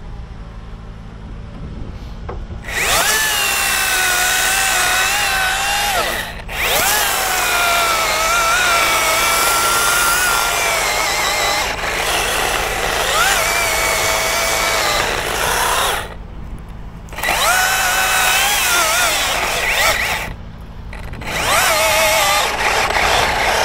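Chainsaw run at full throttle in four long cuts with short drops to idle between them, its pitch wavering and sagging as the chain bites, making the felling cuts in a tree top. A steady low engine hum runs underneath.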